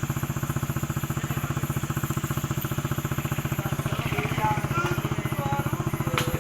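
Motorcycle engine idling steadily with an even, fast putter of about a dozen beats a second.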